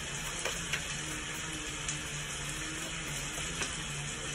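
Recorded rain from a thunderstorm soundscape playing steadily as background, an even hiss of rain with low steady tones beneath it.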